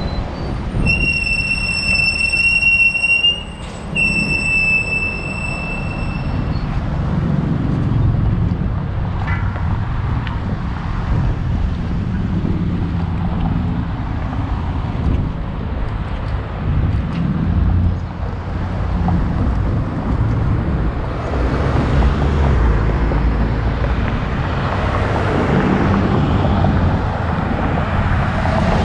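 Wind rumbling on the microphone and road noise while riding a bicycle, with motor traffic passing close by. The traffic grows louder over the last several seconds. Near the start come two long, steady high-pitched tones, each about two seconds.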